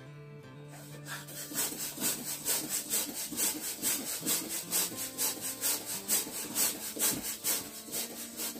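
Hand balloon pump worked in quick strokes, a rhythmic hiss of air with each stroke at about three a second, starting about a second in, as it inflates a latex balloon.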